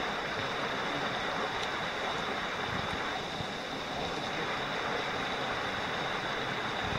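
Shallow stream water rushing over a cobble riffle, a steady rushing sound, with a steady high-pitched whine underneath.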